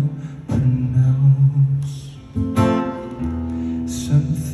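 A male voice singing slow, held notes over an acoustic guitar, performed live.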